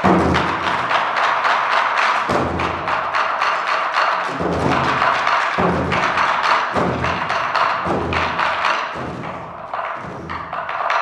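Korean barrel drums (buk) beaten in a fast, driving rhythm: rapid sharp stick strokes, some clacking like wood, with heavy deep drum strikes every second or two.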